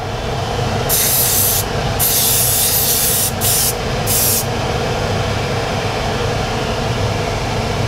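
Spray-booth extractor fan running with a steady hum. In the first half it is joined by four short hisses from an airbrush spraying a satin coat, the second one the longest.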